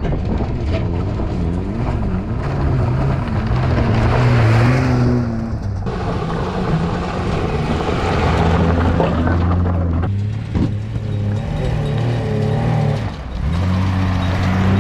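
Land Cruiser Troopy's engine pulling in low range up a steep rocky hill at walking pace, its revs rising and falling as the vehicle bumps over the rocks, with a few knocks from the body and suspension.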